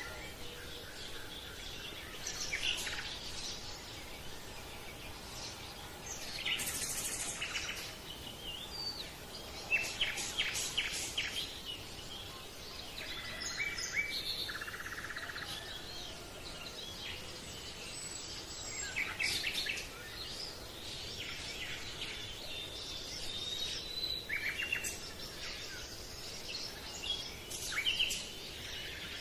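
Several birds chirping and singing in short calls and trills, scattered irregularly over a steady background hiss.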